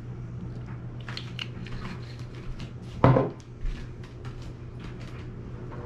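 Light clicks and rustles of kitchen handling, then a solid knock about three seconds in as the soy sauce bottle is set down on the wooden table, with a smaller knock just after. A steady low hum runs underneath.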